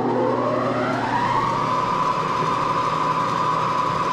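Moore jig borer spindle spinning up. Its whine rises in pitch over about the first second, then the machine runs steadily at speed.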